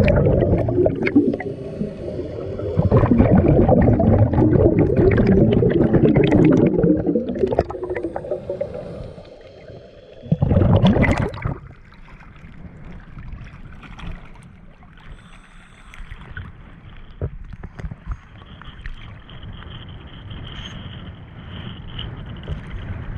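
Underwater bubbling and rumbling from scuba divers' exhaled regulator bubbles for the first several seconds. About ten seconds in comes a brief loud splash as the camera breaks the surface. After that, quieter waves slosh and lap against it at the surface.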